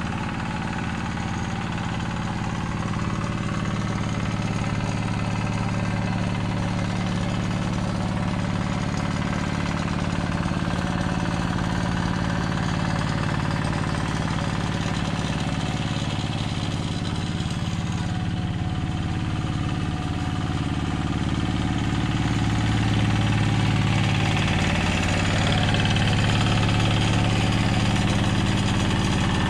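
Yanmar diesel engine of a two-wheel hand tractor running steadily under load as it plows a flooded rice field. It gets a little louder in the last few seconds as the tractor comes closer.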